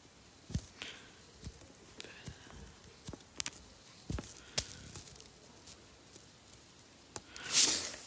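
Scattered small clicks and taps, about ten of them at uneven intervals, against a quiet background: handling noise picked up by the phone's microphone. A short, louder rush of noise comes near the end.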